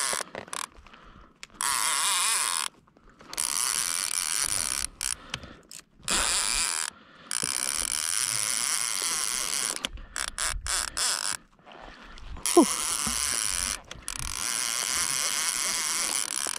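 Avet MXL two-speed reel's clicker ratcheting as the spool turns under a large hooked fish, in stop-start bursts with short pauses. A brief falling squeak comes about two-thirds of the way through.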